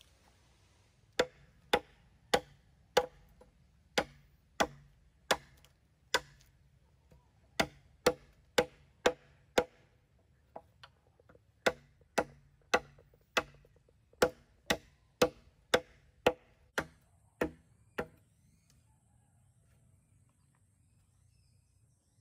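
Machete blade chopping into a green bamboo pole: a steady run of sharp knocks, about two a second with a couple of short pauses, stopping a few seconds before the end.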